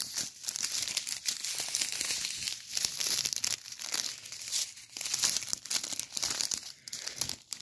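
Clear plastic packaging bag being handled, crinkling with many small irregular crackles.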